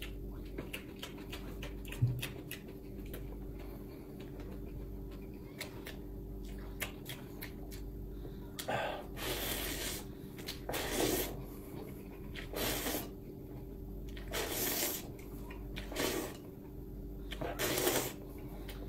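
Instant noodles being slurped from a bowl of soup: about six long sucking slurps in the second half, one every second or two. The first half holds many small clicks, under a faint steady hum.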